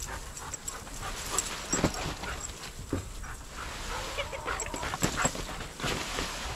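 A German shepherd whining briefly about four seconds in, amid scattered knocks and rattles.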